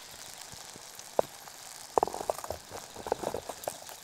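Eggs and bacon sizzling faintly in a frying pan as the pan is handled with a clip-on gripper, with a sharp metal click about a second in and a run of clinks and knocks from about two seconds in as the pan is moved off the stove and set down.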